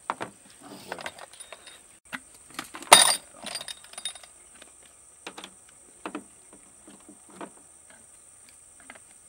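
Irregular knocks and clinks, with a louder clatter about three seconds in and a few single knocks after it.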